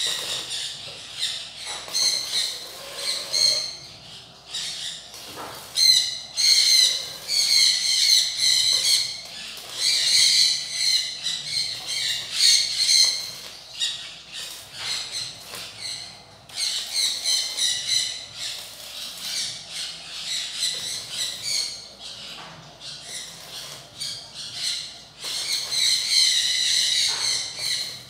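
Stick (arc) welding on a steel frame: the arc crackles with a high wavering squeal, in runs of a few seconds broken by short pauses.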